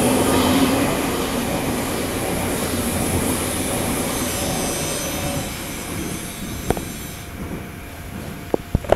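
Odakyu 50000 series VSE Romancecar electric train passing through at speed: a steady rush of wheels on rail that fades from about halfway as the train runs away down the line. Faint high squealing tones sound around the middle, and a few sharp clicks come near the end.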